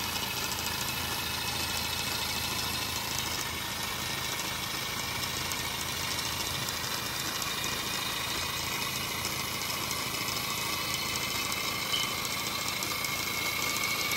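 Paper model boxer twin engine running steadily with its flywheel fitted: a fast, even paper clatter that runs smoothly. A faint whine rises in pitch over the last few seconds.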